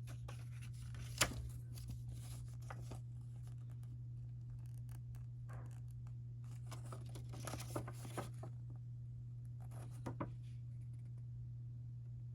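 A CD in its plastic jewel case and paper booklet being handled: three spells of rustling and crackling with small clicks, the sharpest click about a second in. A steady low hum runs underneath.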